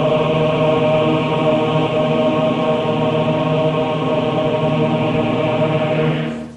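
A large choir holding one long sustained chord, cut off abruptly near the end.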